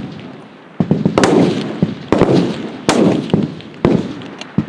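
Rifle shots from F-Class target rifles on the firing line: about six reports, irregularly spaced and from several guns, each followed by a rolling echo that dies away over roughly half a second.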